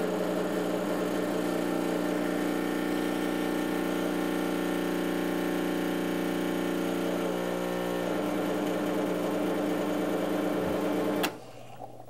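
Rancilio Silvia espresso machine's vibratory pump buzzing steadily as it pushes water through the portafilter to pull an espresso shot; the pump cuts off suddenly near the end when the shot is stopped.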